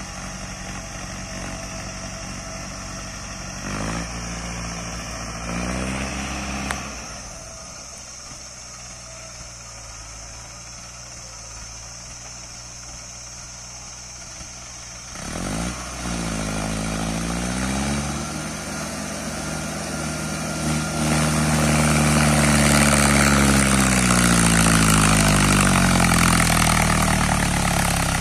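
Mahindra Arjun 555 DI tractor's four-cylinder diesel engine running at full throttle in low third gear while hauling a loaded trolley uphill, labouring under the load. Its note rises and falls in pitch several times and grows much louder from about two-thirds of the way in as the tractor comes close.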